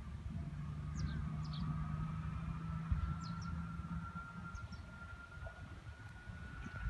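Distant tractor with a silage trailer driving across a field: a low engine note for the first few seconds and a steady high whine from the machinery, rising slightly in pitch. Wind rumbles on the microphone, and small birds chirp in short repeated calls.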